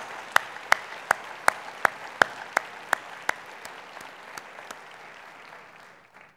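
Audience applauding, with one person's close, evenly paced hand claps, about three a second, standing out over it. The claps stop about three-quarters of the way through, and the applause fades away and cuts off just before the end.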